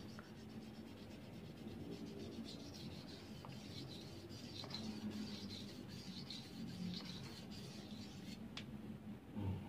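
Faint, repeated rubbing strokes of a steel slaughter-knife blade pushed back and forth across a fine 10,000-grit whetstone during sharpening, with a few light clicks of the blade on the stone.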